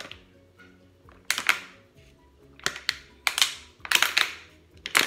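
Thin plastic water bottle crinkling and crackling in several loud bursts as it collapses under suction while someone drinks from it. Soft background music plays underneath.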